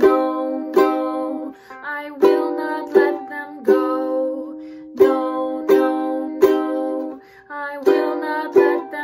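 Instrumental music: chords strummed on an acoustic plucked-string instrument at a slow, uneven pace, about a dozen strums, each ringing out and fading before the next.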